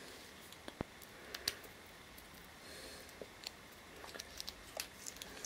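Faint scattered clicks and taps from an aluminium-cased chronograph wristwatch and its leather strap being handled in the fingers, the loudest about a second and a half in.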